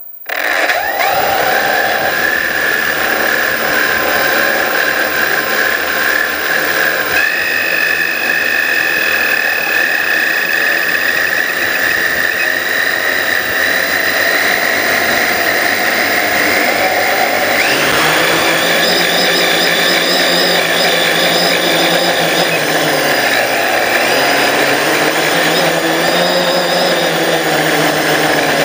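Small drone's electric motors and propellers whining, heard from its onboard camera. They spin up right at the start and run steadily while it sits on the ground. About two thirds of the way through the pitch jumps up as it throttles up and lifts off.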